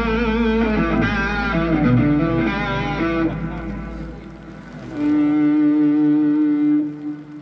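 Live rock band playing an instrumental passage: an electric guitar melody with bent, wavering notes over bass, fading out about four seconds in, then long held notes.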